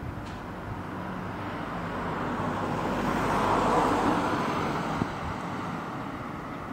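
A van driving past close by, its tyre and engine noise swelling to a peak about halfway through and then fading, over the steady rumble of freight wagons rolling along the track.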